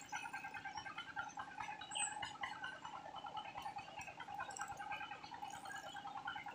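Continuous chirping and trilling of wildlife: a steady, rapidly pulsing trill at one pitch under many short, higher chirps.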